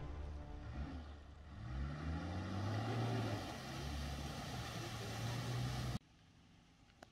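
Four-wheel drive wading through a river crossing: the engine climbs in revs about two seconds in, then pulls steadily under load, with water sloshing and splashing around the vehicle. The sound cuts off abruptly near the end.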